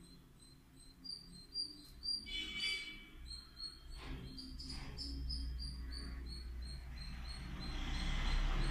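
Insects chirping in an even, rapid rhythm, several high chirps a second. A brief higher call comes about two and a half seconds in, and a low rumble builds through the second half.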